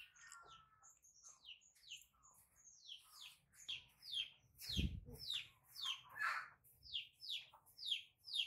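Rapid, high chirping calls, each falling in pitch, about two a second, growing louder through the second half. There is a soft thump about halfway through.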